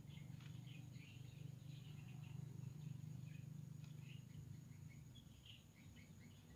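Near silence: faint outdoor ambience of scattered short, high chirps over a low steady hum.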